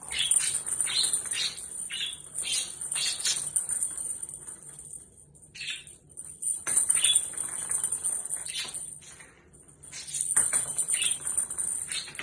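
Budgerigar chattering in quick runs of short chirps with a hissy warble, with two brief pauses, about five seconds in and again near nine and a half seconds.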